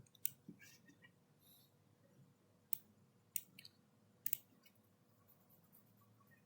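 Faint, scattered clicks of a computer mouse, with a few sharper ones in the middle.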